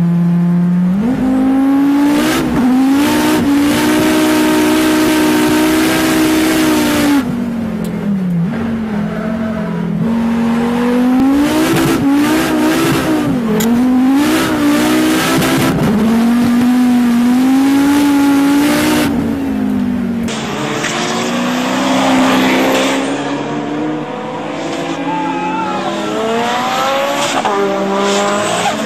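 Race car engine revving hard, its pitch climbing and dropping again and again with throttle and gear changes, with tyres squealing as the car drifts. Heard at first from inside the car.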